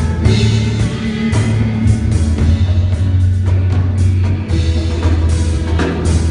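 A live band playing: drum kit, bass guitar and keyboards, with a strong low bass line and steady drum hits.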